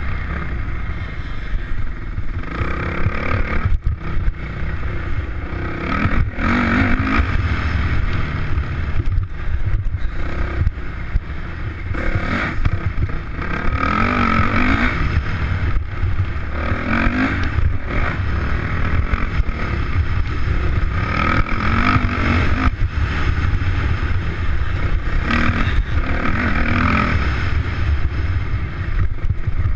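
Dirt bike engine on the move, the revs climbing and dropping back every two to three seconds as the rider accelerates and shifts.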